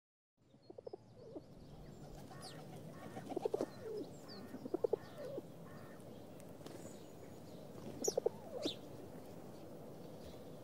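Pigeons cooing faintly in short groups, with small birds chirping now and then.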